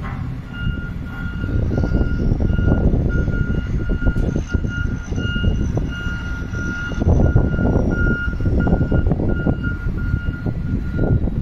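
Electronic beeper sounding a rapid, even run of short high-pitched beeps, starting about half a second in, over a loud low rumbling noise.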